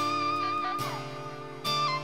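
Guitar music under the recitation: held, ringing notes, with one note bending downward about a second in and a new note struck near the end.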